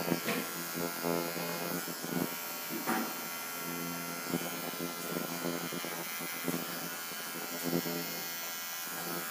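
Corded electric dog clipper running with a steady buzz as it trims the hair around a dog's paw, its hum swelling and fading as the blade moves through the fur, with a few light knocks.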